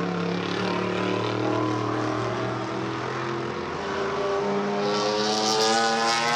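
Vintage race car's engine running at speed: a steady drone that rises in pitch as the car accelerates, growing louder near the end as it comes closer.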